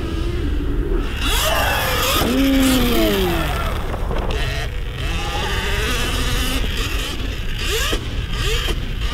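Sur-Ron electric dirt bike's motor whining, its pitch sliding up and down again and again as the rider opens and closes the throttle through a hot lap, over a steady low rumble.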